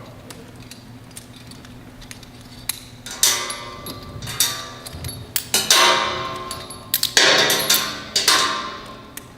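Metal carabiners clanking and clinking as they are unlocked, unclipped and set down on an I-beam, a quick run of sharp ringing metal hits starting about three seconds in.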